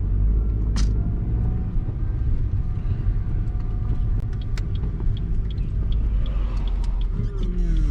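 Car engine and road rumble heard from inside the cabin while driving on a rough road, with scattered small clicks and knocks. Near the end the engine's pitch drops.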